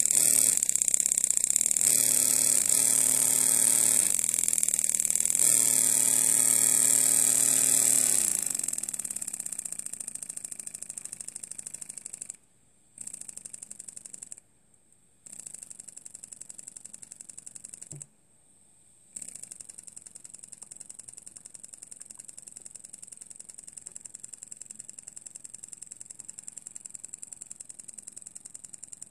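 Miniature brass V-4 steam engine, a self-starting design, running on compressed air. It runs fast and loud, then slows with a falling note after about eight seconds into a quieter steady ticking beat. It cuts out three times for under a second and picks up again each time.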